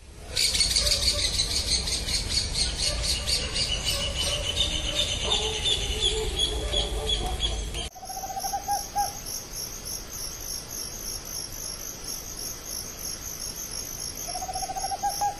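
Rufous hornero calls: loud runs of rapid chattering notes. After a sudden cut comes a screech-owl's short trill of quick low notes, given twice, over crickets chirping in a steady pulsing rhythm.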